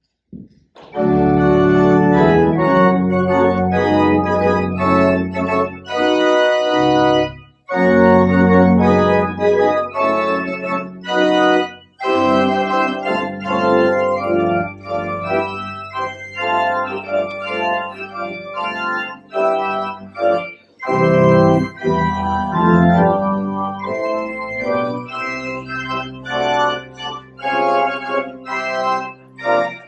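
Church organ playing full sustained chords over a held bass line, starting about a second in, with a few brief breaks between phrases.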